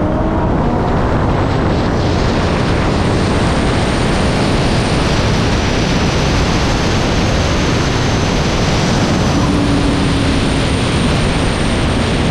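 Steady, loud wind rush buffeting an outside-mounted camera microphone on a Tesla Model X Plaid at full-throttle speed, well over 100 mph, with a faint high-pitched whine running over it.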